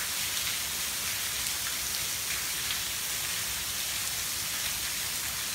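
Heavy hurricane rain pouring steadily onto a screened pool enclosure and its pool deck: an even, dense hiss that never lets up.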